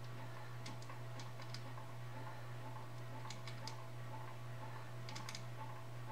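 Small metallic clicks and taps from hands fitting parts on the wire-feed drive of a Lincoln SP250 MIG welder. They are scattered and irregular, over a steady low hum and a faint regular ticking about two to three times a second.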